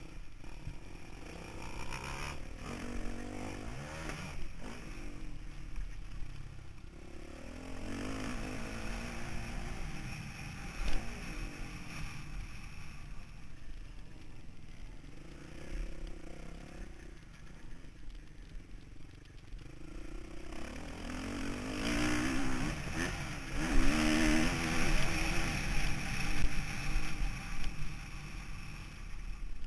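Motocross dirt bike engine revving up and falling back again and again as the rider works the throttle and gears around the track, heard from the bike itself. The revving gets louder for the last several seconds.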